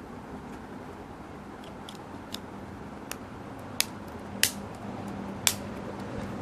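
Plastic back cover of a Ninetology Vox Class feature phone being pressed onto the phone over the battery: a series of small sharp clicks as its clips snap into place, the loudest three about four, four and a half and five and a half seconds in. A steady low hum runs underneath.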